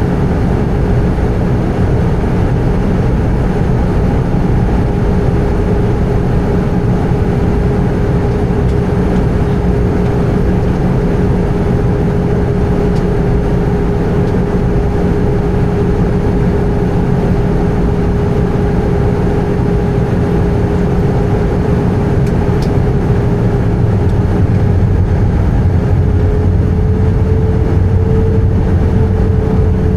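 Airbus A320 cabin noise with the engines running: a steady rumble and rush of air under a constant hum. In the last few seconds the hum rises slightly in pitch and the rumble grows a little louder, as with a change in engine thrust.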